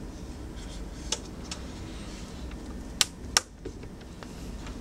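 Plastic clicks from a Casio PQ-75 alarm clock being handled: a couple of faint clicks, then two sharp clicks about three seconds in, a third of a second apart, over a steady low hum.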